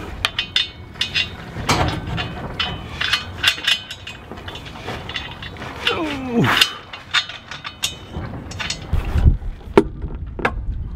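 Metal hand tools and bolts clinking and clicking in irregular knocks as a stainless steel arch base plate is bolted down, with a short falling tone about six seconds in.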